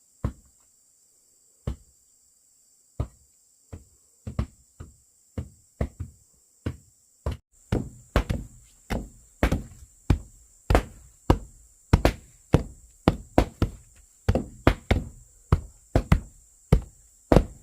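Repeated blows of a hand tool on wood or bamboo: single knocks about a second and a half apart, then from about halfway through a quicker, steady run of two to three blows a second.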